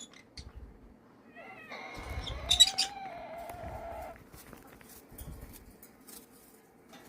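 A pet animal's long drawn-out cry, rising and then holding for about two seconds, with a short harsh screech in the middle. Scattered small clicks come before and after it.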